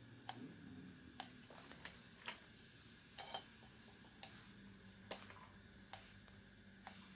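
Pump oil can clicking as its lever is worked, about ten sharp clicks at uneven intervals, squirting oil onto engine crankshaft main bearings.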